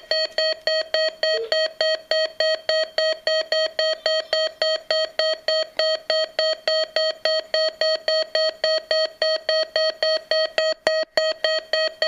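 Weather alert radio sounding its alarm test tone: a loud, rapidly pulsed electronic beep, three or four beeps a second, repeating evenly.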